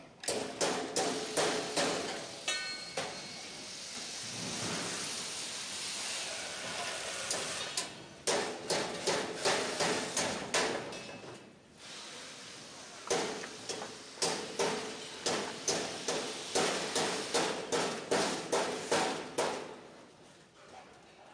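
Rhythmic knocking, two to three sharp strikes a second, in three runs, with a steady rushing noise between the first two runs.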